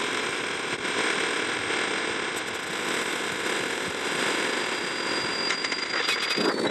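Dense, steady wash of noise from a cartoon soundtrack layered over itself many times, so that the copies blur into a mushy roar with no clear words or tune. A thin high steady tone runs through it.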